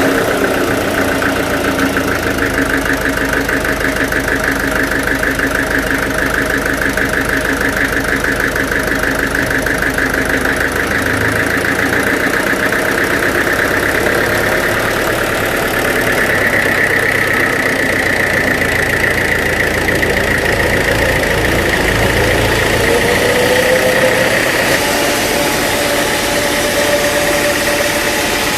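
Engine, just started, running steadily with a rapid, even knocking pulse; about three-quarters of the way through, a tone rises and then holds.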